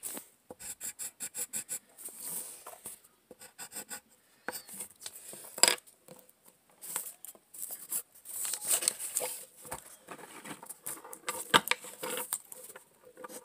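Pencil scratching on paper as the lines of a drawing are traced, first in runs of quick, even strokes, then in looser scraping broken by a few sharp clicks.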